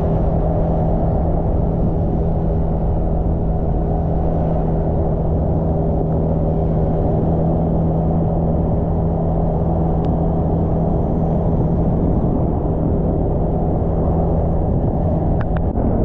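Motorbike engine running at a steady cruising speed, with road and wind noise rumbling on the microphone; the engine's steady hum drops away near the end.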